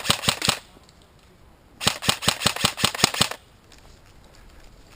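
Airsoft gun firing full-auto at about eight shots a second. A burst stops about half a second in, and a second burst of about a second and a half starts near two seconds in.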